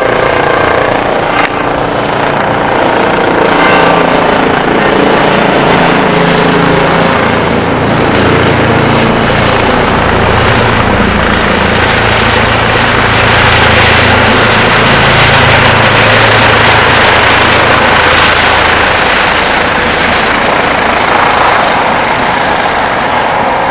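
Twin-turbine Eurocopter EC135 police helicopter flying low past, its rotor and turbine noise growing louder toward the middle and easing off near the end.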